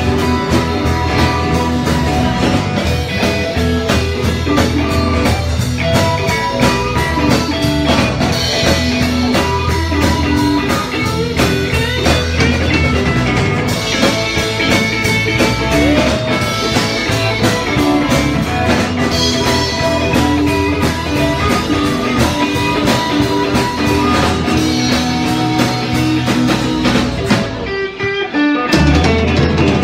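Live band playing blues-rock, led by electric guitar, with a brief break in the sound a couple of seconds before the end.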